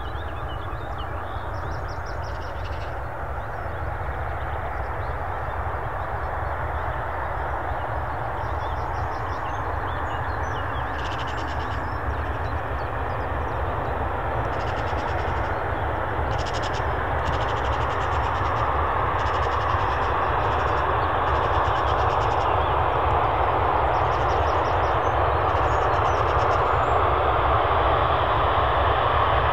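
Jet aircraft engines heard from the ground, a steady rushing noise that grows slowly louder as the aircraft approaches. Faint, short high chirps come and go over it.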